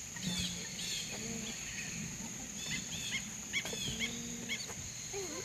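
Aviary birds calling: many short high chirps in quick runs, with a few lower calls, over a steady high-pitched buzz.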